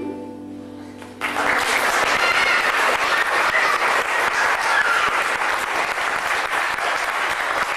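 The last held chord of a harp-led Celtic ensemble fades out, then about a second in the audience breaks into sustained applause.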